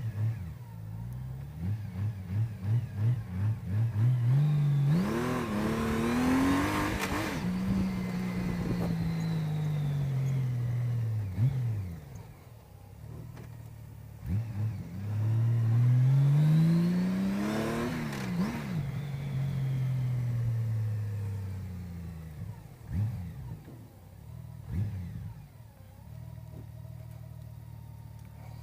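Honda CBR600RR inline-four engine revving in short blips, then accelerating hard with a rising note and a falling note as the bike passes and draws away, twice. More short blips near the end.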